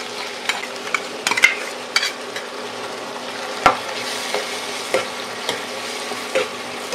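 Small onions and ground onion sizzling in hot oil in a non-stick pan while a metal spatula stirs and scrapes them. The spatula gives repeated short scrapes and taps, with one sharp knock against the pan a little past halfway.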